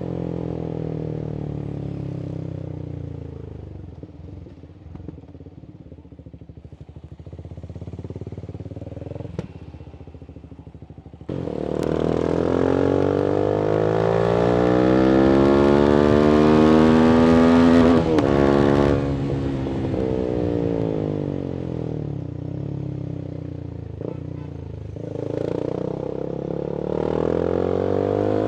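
Voge 300AC motorcycle with a reflashed ECU and a free-flowing full-system exhaust, ridden in traffic. The engine note falls away to a low, quiet run, then about eleven seconds in the throttle opens sharply and the revs climb steadily with wind noise. It rolls off with the pitch falling on deceleration and picks up again near the end.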